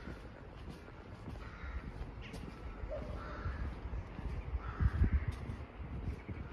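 Crows cawing several times, harsh calls of about half a second each, over a low rumbling noise that is loudest about five seconds in.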